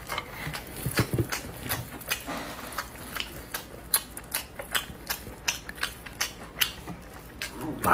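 Sticky, sauce-coated sea snail shells clicking and knocking as gloved fingers handle them and pull the meat out: a quick, irregular run of small sharp clicks.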